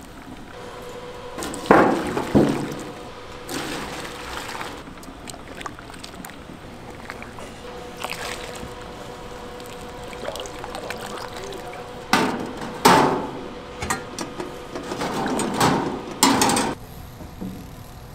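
Liquid being ladled and poured at a cooking stall: broth scooped from a boiling stockpot and sauce poured into a steel tray. Several loud splashes and clatters stand out over a steady background hum.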